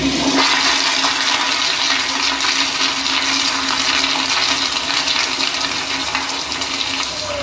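Toilet flushing: a loud rush of water through the bowl, slowly tapering off. A low steady hum under the rush fades out about halfway through.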